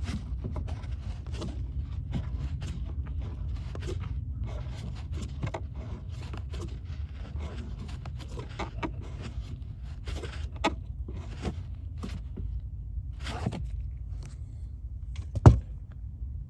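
Hand work on a car taillight fastening: scattered light clicks and scrapes of plastic parts and a screw being turned snug, over a steady low rumble. One sharp, loud click comes near the end.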